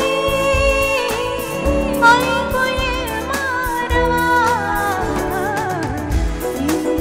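A woman sings a Marathi song live into a microphone, her voice gliding and ornamenting the melody over band accompaniment with a steady percussion beat.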